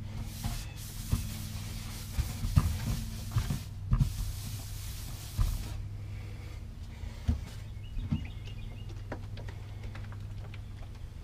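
Paper towel wet with alcohol scrubbing the inside of a boat livewell: a rasping rub for the first six seconds or so, with light knocks of the hand against the tank. A steady low hum runs underneath.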